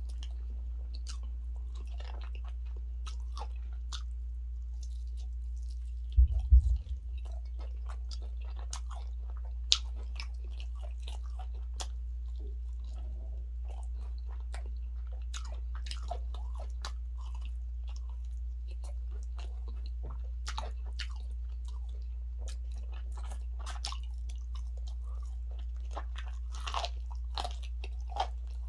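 A person chewing and biting through a meal of fufu and spicy turkey stew: many small clicking mouth sounds over a steady low hum, with a dull low knock about six seconds in.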